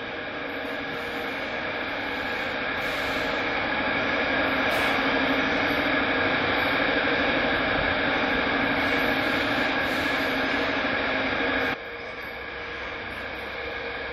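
Steady machinery hum with several held tones, growing louder over the first few seconds, then dropping abruptly about twelve seconds in.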